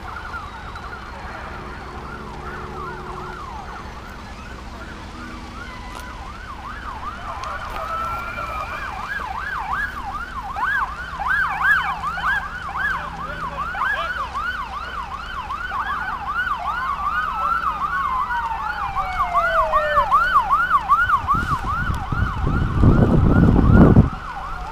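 Emergency vehicle sirens approaching: several fast yelping sirens, about three sweeps a second, overlap with a slower wail and grow louder. Near the end a loud low rushing noise lasts about three seconds, then cuts off suddenly.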